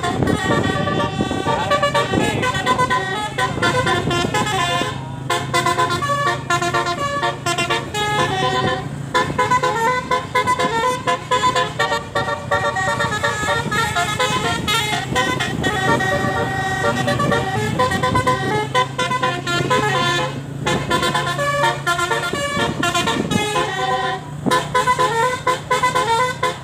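Multi-tone 'telolet' musical horn of a tour bus playing a quick tune, note after note, with a few short breaks, over a steady low engine hum.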